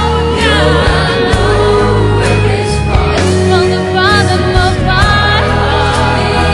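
Music: an uplifting pop song with sung vocal lines over sustained bass, with choir-like backing.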